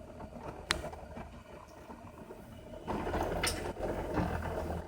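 New Matter MOD-t 3D printer at work, its motors running with a steady low hum. There is a sharp click under a second in, and the motor noise gets louder from about three seconds in, with another click.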